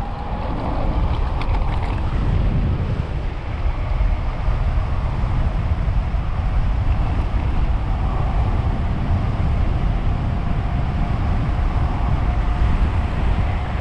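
Wind rushing and buffeting over the microphone of an electric-assist tandem bicycle riding at speed, with a faint steady whine from its electric hub motors in the second half.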